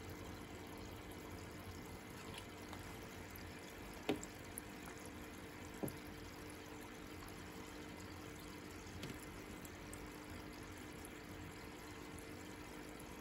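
Faint steady hiss with a low hum, small watery sounds and two short clicks about four and six seconds in, as a European pond turtle moves about in shallow water in a plastic tub.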